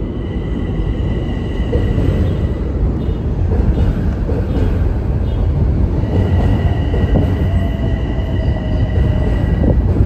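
Electric commuter train rolling slowly along the station track with a heavy low rumble, wind buffeting the microphone. A steady high-pitched wheel squeal comes in twice, for a couple of seconds about a second in and again for the last four seconds.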